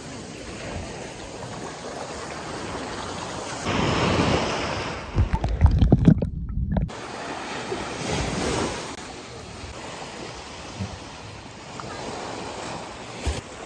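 Sea waves washing on the shore under a steady wind. Wind buffets the microphone heavily for a few seconds in the middle.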